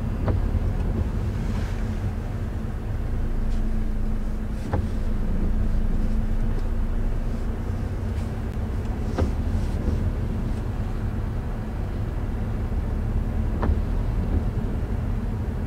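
Car cabin noise while driving: a steady low engine and road rumble with a faint steady hum. A light click comes every four to five seconds.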